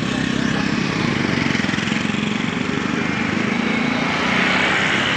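Motorcycle engine running steadily, a little louder about four seconds in.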